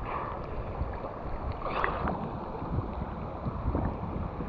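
River water sloshing and lapping right at the microphone as a swimmer moves neck-deep in a fast-flowing river, with a brief louder splash about two seconds in.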